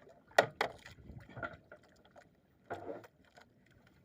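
A few short splashes of water.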